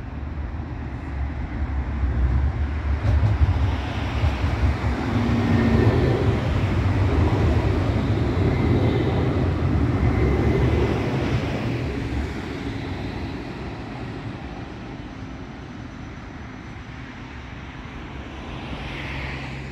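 Electric tram, a CAF Urbos low-floor unit, passing close by: a low rumble of wheels on rails that builds over the first few seconds, is loudest around the middle, and fades away through the second half, with a faint whine as it goes past.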